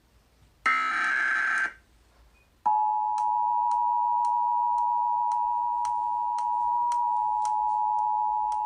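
Emergency Alert System header: one SAME digital data burst, a harsh screech about a second long, then after a short pause the EAS two-tone attention signal sounds and holds steady to the end. Faint ticks run under the tone about twice a second.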